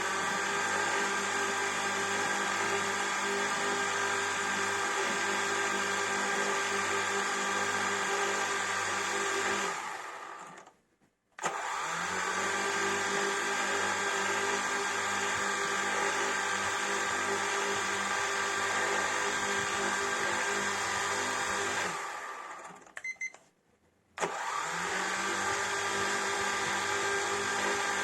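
Quadcopter drone's motors and propellers buzzing with a steady, many-toned whine. It fades out twice and starts again, its pitch rising briefly each time it comes back.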